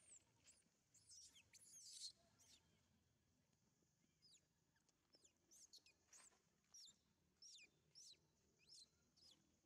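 Baby macaque monkey squeaking: about a dozen short, thin, high-pitched cries, each falling quickly in pitch, coming at irregular intervals. The loudest cluster is about two seconds in.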